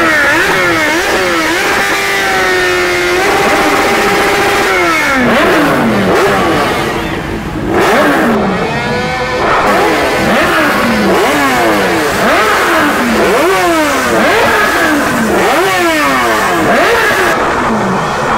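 Several motorcycle engines revving over and over, with quick throttle blips whose pitch climbs and drops again and overlaps from one bike to the next. About two seconds in, one engine is held at steady revs for about a second.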